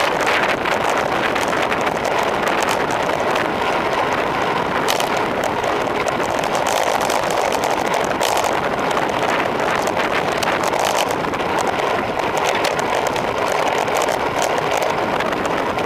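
Wind rushing steadily over the microphone of a handlebar-mounted camera on a road bike descending at speed, with scattered small clicks and rattles.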